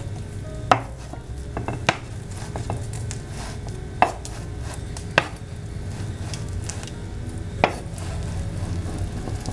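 Kitchen knife cutting a cooked okonomiyaki and knocking on the cutting board: five sharp taps a second or more apart, over a low steady hum.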